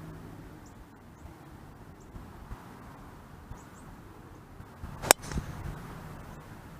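A golf club striking the ball once about five seconds in: a single sharp, loud crack at impact.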